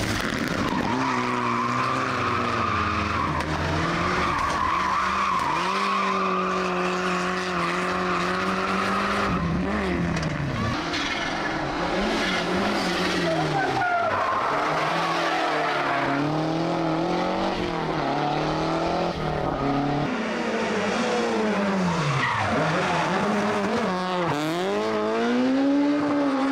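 Rally car engine revving hard, its pitch climbing and dropping again and again as the car accelerates, lifts and shifts through the gears. A high squeal runs through the first nine seconds or so, as the tyres slide.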